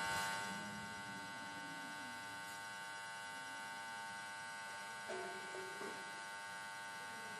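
Steady electrical hum and buzz, a dense stack of unchanging tones.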